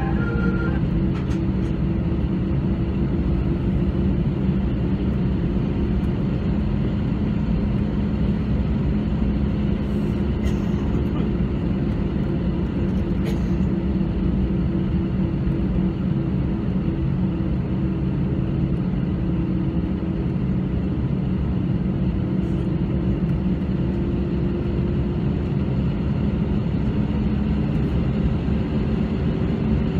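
Cabin noise of an Airbus A320 taxiing: the engines' steady low drone, with a constant hum under it.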